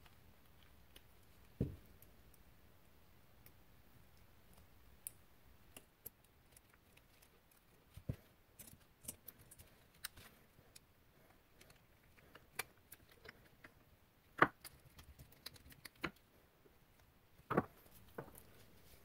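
Small carburetor parts being handled and taken apart by hand: scattered light clicks and taps of metal and plastic pieces, with a few louder knocks, the loudest about three-quarters of the way through and another near the end as parts are set down on the bench.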